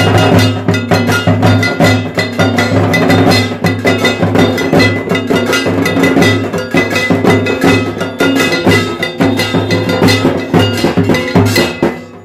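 Dhak drum beaten in a fast, continuous rhythm, with bright metallic ringing over the strokes, breaking off just before the end.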